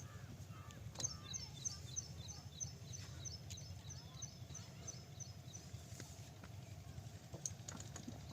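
A small bird singing a fast run of high, repeated chirps, about four a second, over a low steady rumble and a few clicks.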